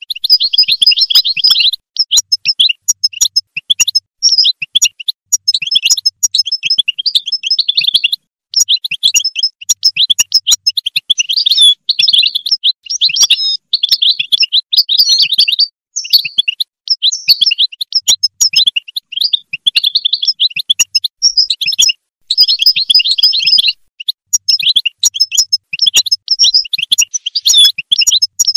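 European goldfinch song: a continuous run of rapid, twittering phrases, each a second or two long, separated by brief pauses.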